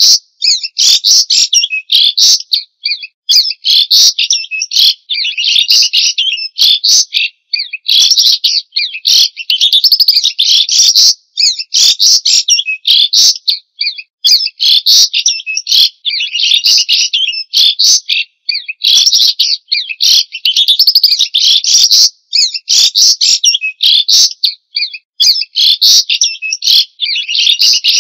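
White-rumped shama (murai batu) singing: a loud, continuous run of fast, varied whistled phrases, each a second or two long, with brief pauses between them.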